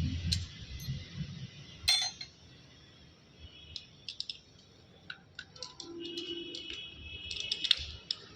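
Metal gearbox parts clinking and ringing lightly as they are handled, a scatter of sharp clicks with the loudest about two seconds in and a quick cluster near the end.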